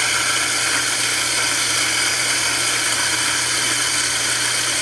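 Small electric flat-burr coffee mill of the Jericho type running at full speed as it grinds light-roast beans: a steady, even whir over a low motor hum. The owner suspects its direct-drive motor is a little underpowered for the load of the burrs.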